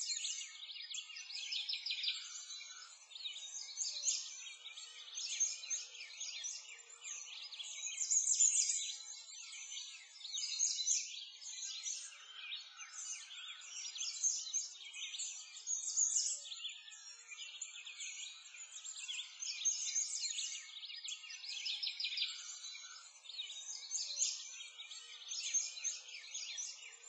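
Continuous chorus of many small songbirds chirping and singing, all high-pitched, with no low sounds beneath.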